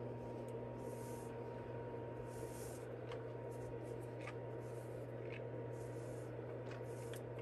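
Yarn being drawn through knitted fabric while backstitching a seam: soft rustling swishes roughly every second with a few faint ticks, over a steady electrical hum.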